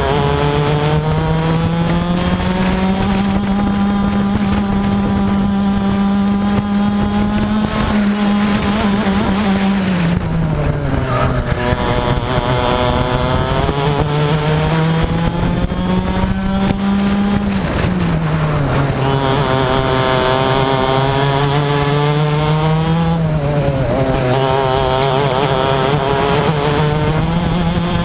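Onboard racing kart's two-stroke engine at full throttle, its pitch falling three times as the driver lifts and brakes for corners and climbing back as he accelerates out, with wind rush on the microphone.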